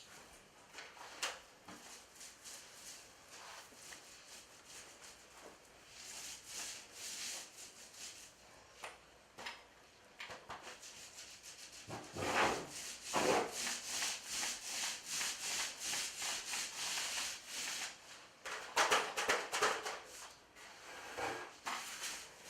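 Paint roller spreading contact cement in repeated rubbing strokes, faint at first and louder in runs from about halfway through and again near the end.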